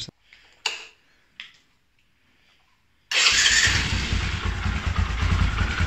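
Bajaj Boxer 150 motorcycle's single-cylinder four-stroke engine running steadily with a fast even beat. It comes in suddenly about three seconds in, after a few seconds of near quiet broken by two short knocks. The engine has just had its carburettor cleaned, fresh fuel and a new fuel filter, and it is running nicely.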